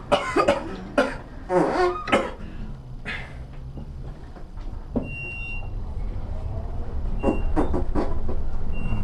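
Fart sound effects from a prank noisemaker: several loud, short, wavering blasts in the first two seconds, and a few shorter ones near the end, over the steady low hum of a moving elevator. A short high beep sounds about five seconds in.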